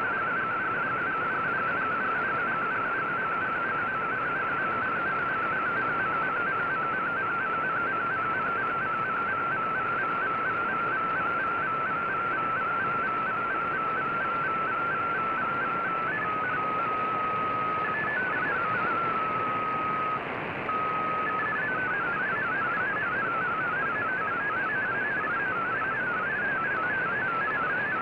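Shortwave MFSK digital data signal: a fast warbling stream of changing tones over steady static hiss. About two-thirds of the way in it drops to a single steady tone with a few short blips and a brief gap, then comes back as a wider, busier warble.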